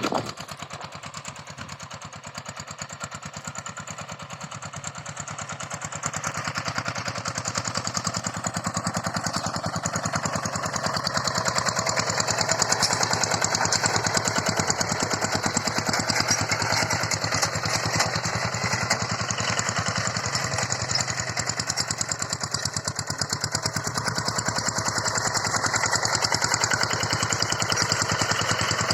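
Single-cylinder diesel engine of a two-wheel hand tractor running steadily while ploughing, with a fast, even firing beat. It gets louder about six seconds in and again about twelve seconds in.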